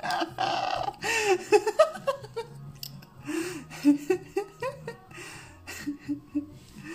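A woman laughing and giggling, her voice rising and falling in short breathy bursts.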